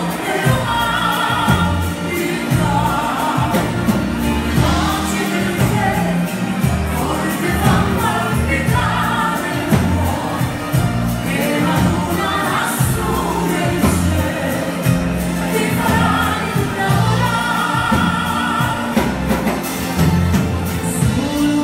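Live amplified band music with sung vocals from a female and a male singer over accordion, keyboard, electric guitar and drums, with a steady bass beat.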